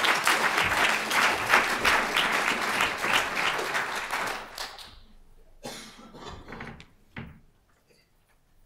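Audience applauding, dense clapping that fades out about halfway through, followed by a few soft knocks and rustles.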